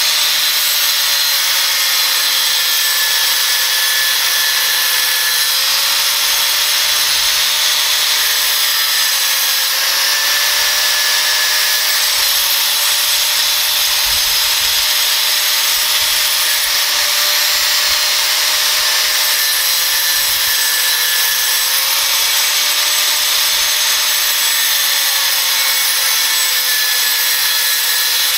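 Angle grinder cutting through steel square tubing with a thin cut-off wheel: a loud, steady grinding whine whose pitch sags and recovers several times as the wheel bites.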